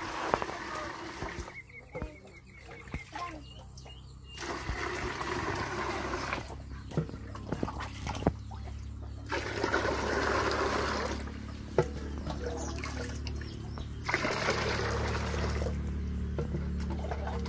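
Water poured from a plastic jug into a plastic bucket, in several pours a few seconds each. Between the pours come knocks and dipping sounds as the jug scoops more water from a clay pot.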